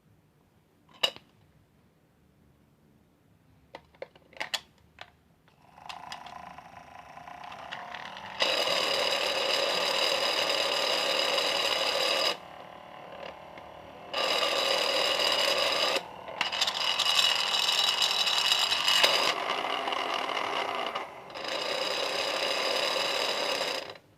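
Washing machine starting up: a few clicks of its controls, then a steady mechanical hum that builds up and runs in long stretches, broken by short pauses about four seconds in and near the end.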